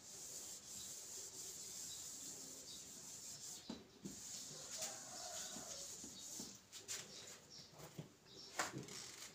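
Whiteboard eraser rubbing across a whiteboard, wiping off marker writing: a faint, steady scrubbing sound with a few sharp knocks, the loudest near the end.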